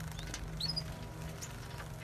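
Small finches splashing and fluttering in a shallow water bath, with a few short high chirps, over steady background music.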